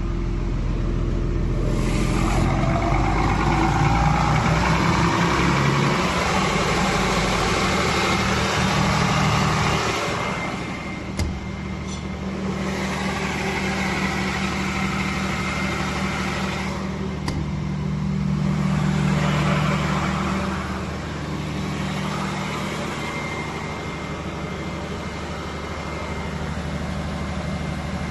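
Cummins 187.5 kVA diesel generator set running steadily, with a faint rising whine about two seconds in; the sound grows and falls back a couple of times.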